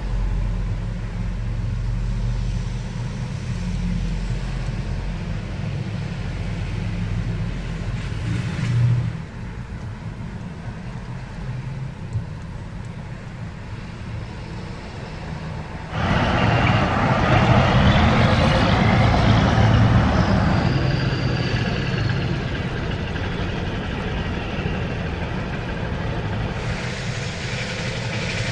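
Heavy trucks and cars passing on a street: low diesel engine rumble and tyre noise. About halfway through it jumps abruptly to louder traffic noise, with a brief high falling squeal.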